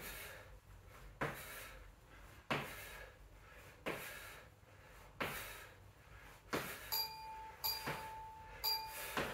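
Feet landing on an exercise mat over a concrete floor in jumping frog squats, one thud about every 1.3 seconds. Near the end an interval timer beeps three short times, counting down the end of the work interval.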